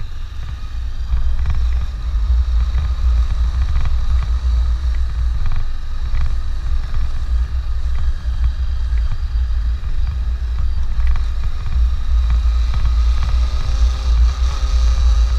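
Honda CB500X's parallel-twin engine running under way, buried in a heavy, steady low rumble of wind buffeting on the microphone.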